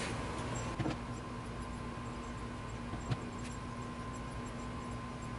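Light handling of a wooden drawer face being fitted to a drawer: a soft knock about a second in and a sharper tap about three seconds in, over a steady background hum.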